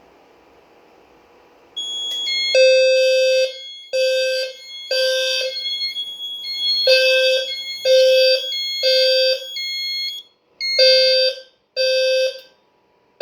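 Fire alarm system in alarm after a smoke detector test: its sounders pulse in the three-beat temporal evacuation pattern, a low horn tone with high shrill tones over it, three pulses then a pause, repeating. A high steady tone starts just before the pulsing begins, about two seconds in.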